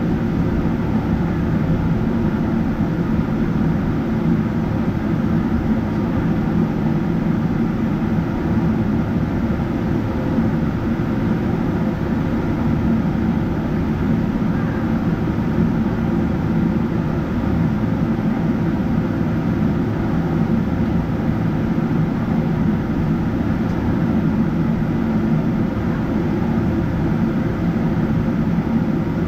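Steady low rumble inside the cabin of a Boeing 777-300ER: its GE90-115B engines and airframe noise, even in level throughout with no spool-up or change.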